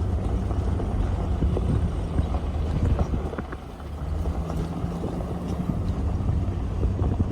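Jeep WJ's engine running steadily at low speed, with tyre and road noise and scattered knocks and rattles from driving a rough dirt trail.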